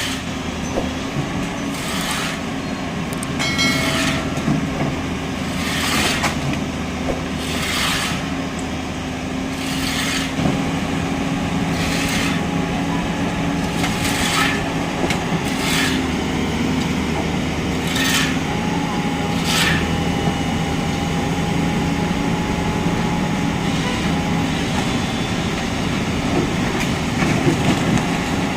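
Heavy machine engine running steadily, with a series of short sharp crashes and knocks every second or two, typical of an excavator breaking up and clearing demolition debris.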